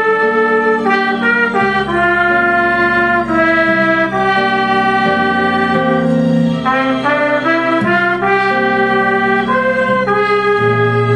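Trumpet playing a slow kundiman melody in long held notes, over a sustained low bass accompaniment.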